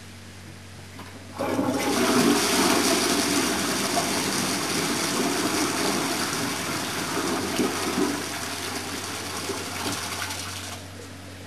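A toilet flushing: a sudden rush of water starts about a second and a half in, runs strongly for several seconds and eases off near the end, over a steady low hum.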